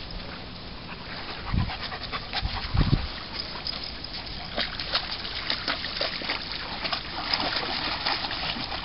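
A wet dog splashing about in shallow water, with many small scattered splashes and drips and a couple of dull thumps in the first three seconds.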